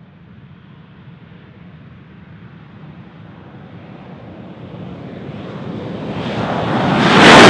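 F-16 fighter jet engine noise that starts faint and grows steadily louder, swelling into a loud rush of jet noise in the last second and a half as the jet comes close.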